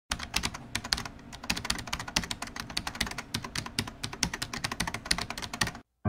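Rapid typing on a computer keyboard: a quick, irregular run of key clicks that stops suddenly near the end.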